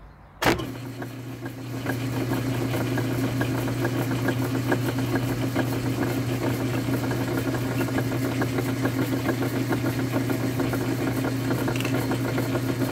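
Metal lathe switched on with a click about half a second in, the motor and spindle spinning up over about a second, then running steadily with a low hum and light irregular ticking as it turns the part in its four-jaw chuck for a light facing cut.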